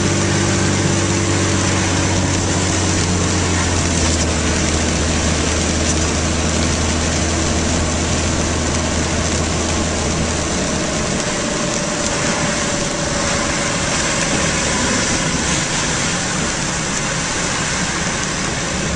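Car engine running, heard from inside the cabin, with a steady low hum that drops away about halfway through, over a constant hiss.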